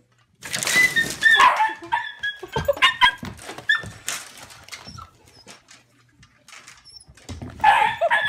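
A dog making high-pitched whining and yelping calls in several bursts over the first few seconds. After a quieter stretch of faint clicks, the calls come again near the end, ending in a long, steady high whine.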